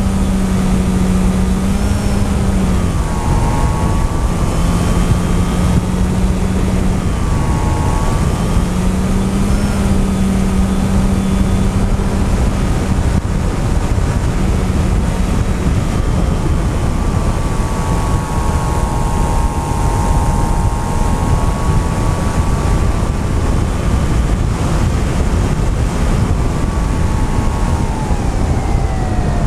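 FPV drone's electric motors and propellers whining, the pitch dipping and climbing again several times as the throttle changes through turns and falling near the end, over heavy wind rush on the onboard camera's microphone.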